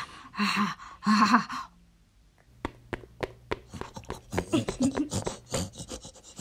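Two short breathy vocal grunts, a brief pause, then a quick irregular run of light clicks and taps with a few small vocal noises, as the Lego pig figure walks across a wooden floor.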